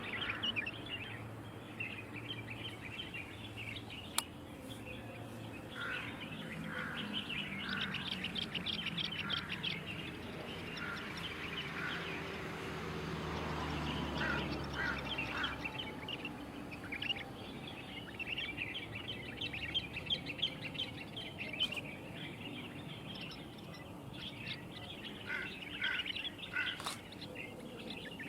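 Small birds chirping and twittering in quick bursts, on and off throughout. A low rumble swells and fades about halfway through.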